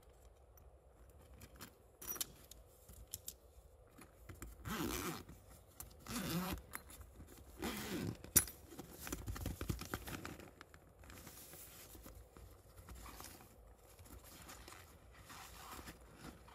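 Zipper of a fabric carry pouch pulled open in several short runs, with rustling and handling of the fabric and a sharp click a little past the middle.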